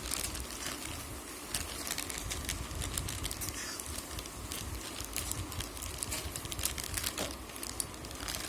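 Packaging crinkling and rustling as it is handled and opened, with irregular sharp crackles and clicks.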